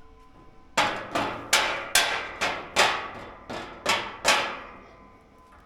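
About nine hammer blows on steel in a steady rhythm, each a sharp strike with a brief metallic ring, as a tight-fitting piece is knocked into the roof rack frame.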